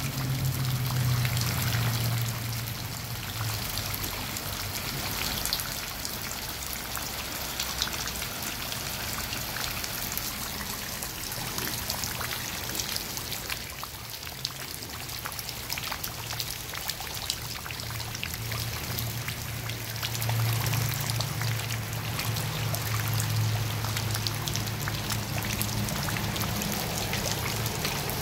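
Steady rain falling into a shallow puddle, thick with small drop splashes, as a duck dabbles its bill through the water. A low hum lies under the rain at the start and again from about two-thirds of the way through.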